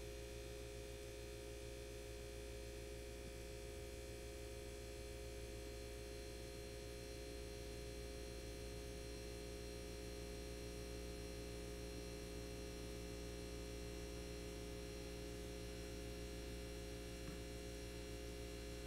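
Steady electrical mains hum with faint hiss, unchanging throughout; no tool clicks or knocks stand out.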